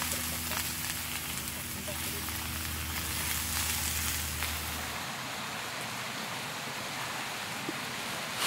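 Vegetables and chili sauce sizzling in a hot pan, turned with metal tongs that click against the pan now and then. A low hum underneath stops about halfway through.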